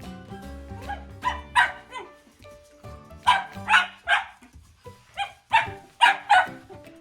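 Shetland sheepdog puppy barking repeatedly in sharp, high barks, several coming in quick pairs, about nine in all, at the household cleaning.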